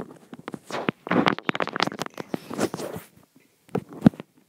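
Handling noise from a handheld camera being moved about: rustling and scraping against the microphone, then a single sharp knock about four seconds in.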